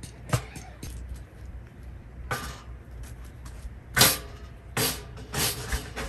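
Metal stove pipe sections of a camping wood stove clanking and scraping as they are handled and fitted together: a sharp clank just after the start, then several longer scrapes and rattles, the loudest about four seconds in.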